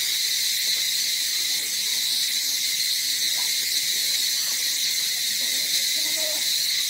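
Insect chorus droning steadily at a high pitch, with a few faint short sounds beneath it.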